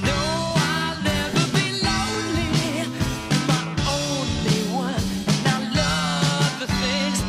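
Background song with a singing voice over a steady beat.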